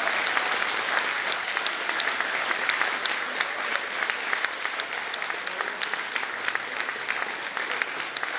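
Audience applauding: a dense, steady patter of many hands clapping that eases slightly toward the end.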